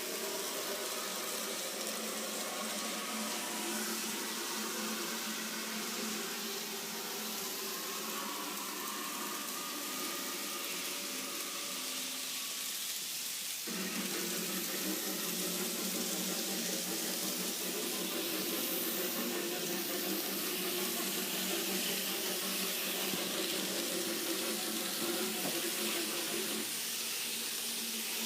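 Steady hissing rush of a dubbed train sound effect, taken from the anime film soundtrack, with a sudden change in texture about 14 seconds in and again near the end.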